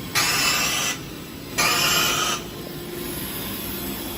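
Fiber laser welder firing on a battery pack: two hissing bursts, each just under a second long, about half a second apart, over the steady hum of the machinery.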